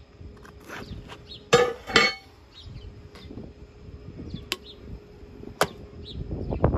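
A 4043 aluminum stick electrode is tapped against an aluminum beer can to strike an arc, making sharp clicks about a second apart. About a second and a half in there are two louder short noises.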